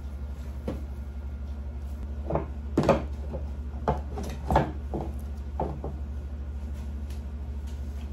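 Stainless-steel canister of a vertical sausage stuffer being set into the stuffer's frame: a series of metal knocks and clunks between about two and six seconds in, over a steady low hum.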